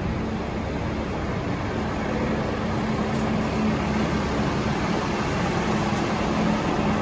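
Three-axle double-decker bus driving slowly past under a concrete deck, its engine giving a steady low hum over road and engine noise that grows slightly louder.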